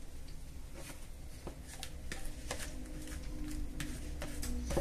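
Rubber spatula scraping a thick potato and egg mixture out of a plastic bowl into a frying pan: a run of soft, irregular scrapes and taps over the low steady hum of a kitchen extractor fan.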